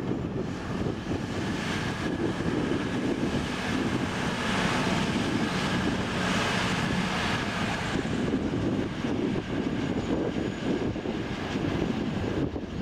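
Steady rumble of a passing vehicle that grows louder through the middle and then eases off.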